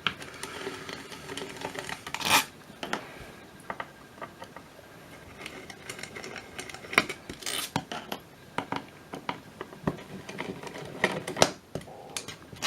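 A screwdriver backing out slotted screws from the radio's die-cast metal housing: irregular small metal clicks and short scrapes, with a few sharper taps.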